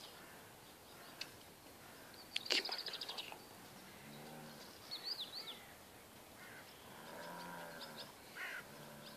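Malamute dogs giving short, low-pitched calls that rise and fall, once about four seconds in and again for about a second around seven to eight seconds, amid faint bird chirps. About two and a half seconds in there is a sharp click followed by a quick rattle of ticks, the loudest sound.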